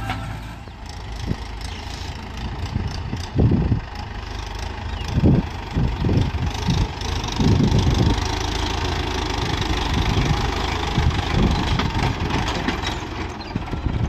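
Mahindra Yuvo tractor's diesel engine running as it pulls a loaded trolley, with a few loud low rumbles about a third to halfway through.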